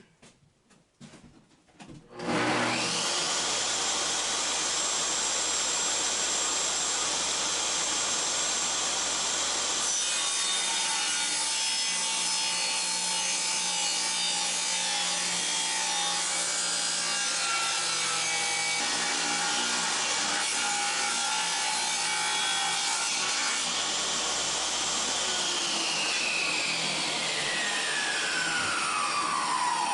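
Table saw switched on about two seconds in and running steadily while it rips a thin wooden board lengthwise. Near the end it is switched off, and its whine falls steadily in pitch as the blade spins down.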